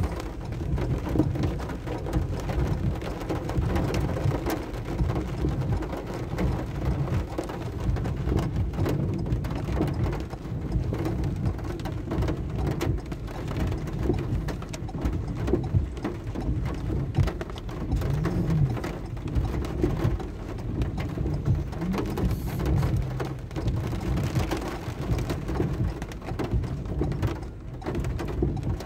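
Heavy rain drumming on a car's roof and windshield, heard from inside the car: a dense, steady patter with a deep rumble underneath.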